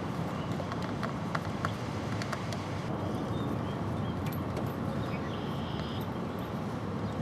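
Steady wind noise buffeting the microphone, with a few faint clicks about a second in and again around the middle.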